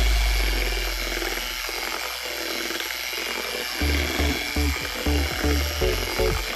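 Multimix electric hand mixer running steadily, its beaters whisking cake batter in a plastic bowl, heard under background music whose low bass notes come in as a beat about four seconds in.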